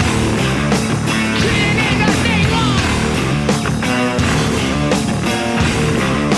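Rock music soundtrack, an instrumental passage with guitars and a steady beat.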